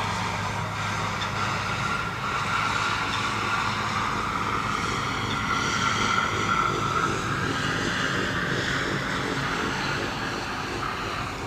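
An engine running steadily: a low hum with a higher whine above it that swells toward the middle and eases off near the end.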